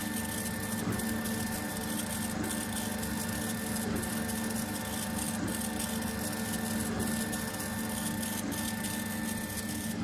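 K40 laser engraver running a raster engraving job: its stepper motors drive the head with a steady, pulsing mechanical hum over the drone of its fans and pumps. A short break comes about every second and a half.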